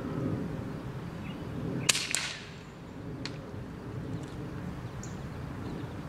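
Hatsan Bullboss bullpup air rifle firing once at a rabbit about two seconds in: two sharp cracks about a quarter second apart, followed by a fainter click a second later.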